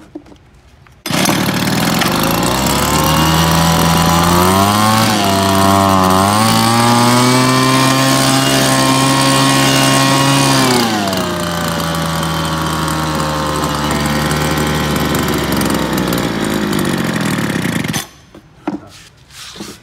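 Two-stroke petrol leaf blower starting about a second in and running. It is revved up to a higher pitch for several seconds, drops back to idle, then shuts off suddenly near the end.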